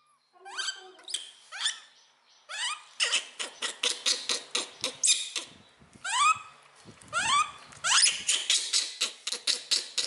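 Several young kittens mewing over and over in short, high cries that rise sharply in pitch, many overlapping: hungry kittens crying while being bottle-fed.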